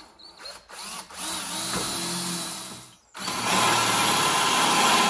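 Cordless drill boring out a hole in a lawn tractor's steel engine-mount plate, enlarging it to fit a new engine. It runs for about two seconds, stops briefly near the three-second mark, then runs again, louder.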